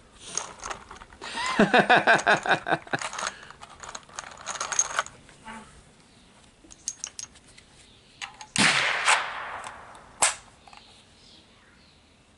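Two gunshots on a shooting range about a second and a half apart, the first louder with a short echoing tail, preceded by scattered sharp clicks of handling.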